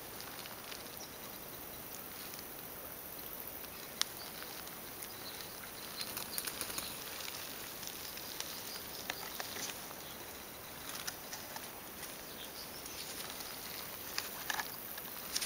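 Faint outdoor ambience of a shallow stream: a soft, steady trickling hiss with scattered light clicks and taps, more of them toward the end.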